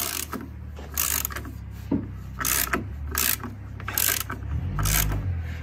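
Hand socket ratchet clicking as it turns the upper engine mount bolts in repeated strokes, about one every three-quarters of a second, over a steady low hum.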